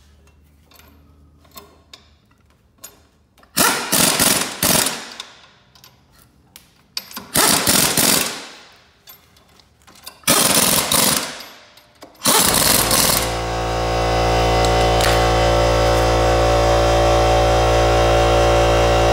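Air impact wrench hammering in three bursts of a second or so each, running down the drive sprocket bolts of a mower track, after a few faint clicks of bolts being set by hand. About twelve seconds in, steady sustained music takes over.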